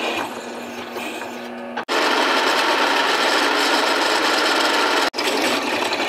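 Benchtop drill press running, drilling holes through a metal suspension tab, with a steady motor hum. The sound is quieter for the first two seconds and louder after an abrupt break; it drops out abruptly again for a moment about five seconds in.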